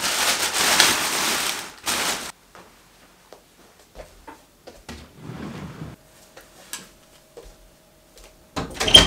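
A large plastic bag rustling and crinkling loudly as it is rummaged through, for about two seconds. Then quieter scattered taps and knocks, with a short burst of clicks and clatter near the end.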